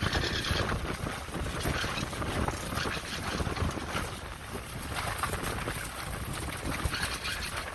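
Sailboat under way: wind buffeting the microphone over the rush of water along the hull, a steady noisy sound with uneven low rumbles.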